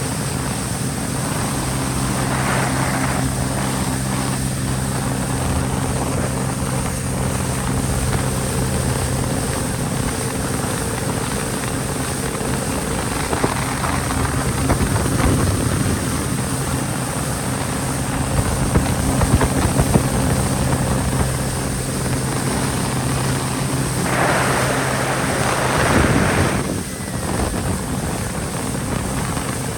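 Yamaha jet ski engine running steadily under way, with wind and water rush over it; a couple of louder rushing swells come through, and the steady engine note changes near the end.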